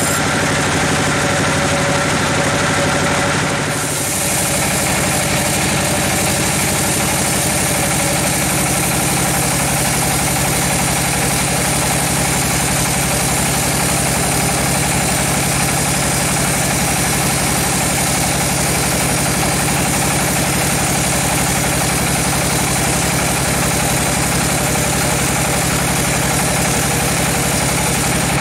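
Large band sawmill running as its blade rips lengthwise through a huge teak log, a constant loud mechanical drone. About four seconds in it dips briefly and shifts in tone.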